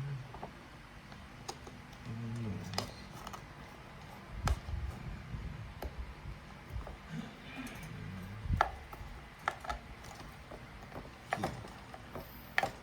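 Irregular clicks and taps of small plastic clock parts and a screwdriver being handled while the screws of a wall-clock movement's cover are driven back in, with a few dull knocks.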